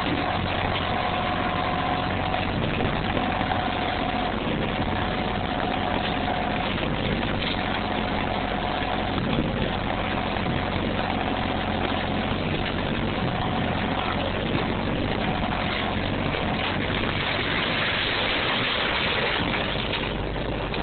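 Kubota compact backhoe's diesel engine running steadily, with a high whine that comes and goes every second or two as it works. A hissy swell of noise rises briefly near the end.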